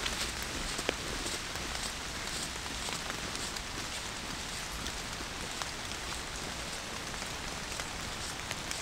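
Rain falling steadily, with many single drops ticking sharply through the even patter.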